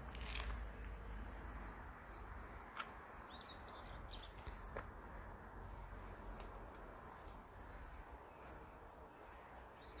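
Small birds chirping and twittering in quick high-pitched notes throughout, over a faint steady outdoor background. A sharp click about half a second in and another near three seconds in.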